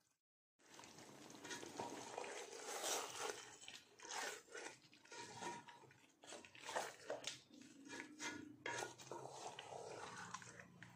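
A spatula stirring thick chicken curry with cream in an aluminium pot: faint, irregular stirring strokes against the pot, starting about half a second in.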